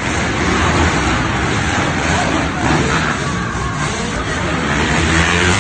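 Several motocross dirt bike engines revving up and down as the bikes race around an indoor dirt track, the sound filling the arena hall.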